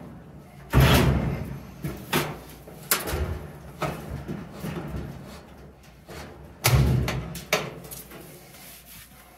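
Metal clunks and clicks as a new drum support roller is fitted onto its shaft on a clothes dryer's rear bulkhead. Two heavy thuds stand out, about a second in and again a few seconds before the end, with lighter knocks and clicks between.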